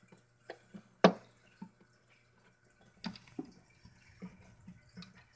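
Soft, scattered clicks and taps of fingers and a small metal screw eye against a plastic model-sailboat hull as the eye is turned back into its hole by hand. The sharpest tap comes about a second in.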